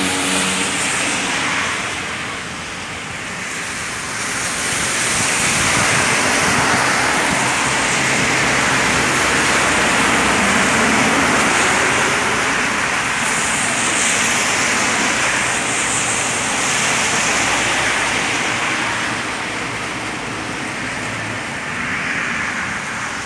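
Steady rushing noise of a vehicle ride on the road, with a faint low engine hum underneath; it swells about five seconds in and eases off near the end.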